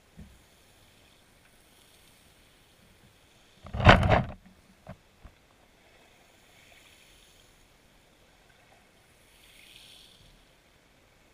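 Muffled underwater sound picked up through a camera housing resting on a shingle seabed: a faint steady hiss, broken about four seconds in by one loud noisy knock-and-rumble lasting about half a second, followed by two small clicks.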